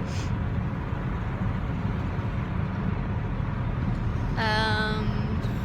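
Cabin noise of a 1971 Oldsmobile Cutlass S on the move: a steady low engine and road rumble. About four and a half seconds in, a brief high wavering whistle sounds over it.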